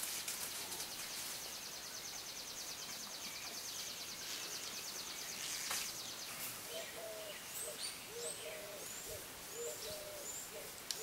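A dove cooing over and over in short, low, hooting phrases from about six seconds in, with small birds chirping high above it. Before that a fast, high-pitched trill runs for the first five seconds or so, and there is a single sharp click near the middle.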